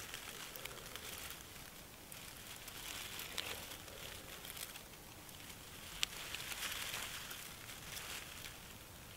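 Dry tinder bundle of grass, birch bark and fibre crinkling and crackling as it is folded in the hands around a glowing bow-drill ember, with one sharp snap about six seconds in.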